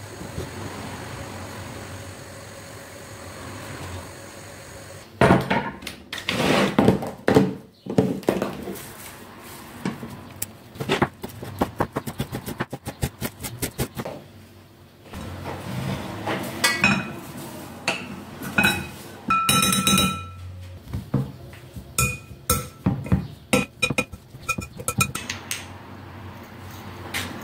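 Kitchen prep sounds at a wooden counter: short knocks and clinks of a knife, a wooden cutting board, a plastic container and glass salt and pepper grinder jars. They start about five seconds in, after a steady hum.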